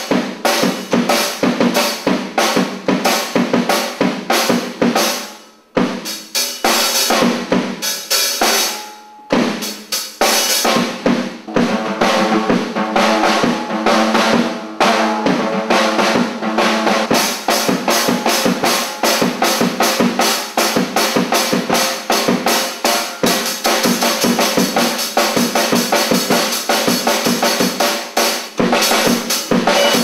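A drum kit played live: bass drum, snare and cymbals in a steady, busy beat, picked up by a camcorder's mono shotgun microphone. The playing breaks off briefly about six seconds in and dips again around nine seconds, and the cymbals wash more steadily in the last few seconds.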